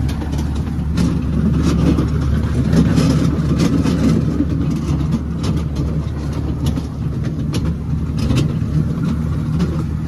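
A motor vehicle's engine running steadily, with scattered light clicks over it.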